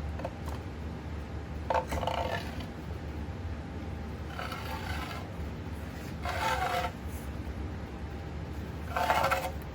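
Metal parts scraping against each other in four short bursts, over a steady low hum.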